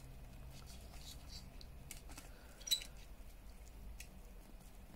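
Faint handling of a small plastic gadget and a thin LED light wire: light rustles and ticks, with one sharper click about two and a half seconds in.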